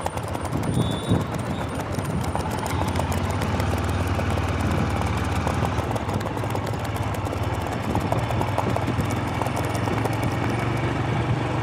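Royal Enfield motorcycle engine running steadily under way, a low even thumping, with the clip-clop of horses' hooves on the road alongside.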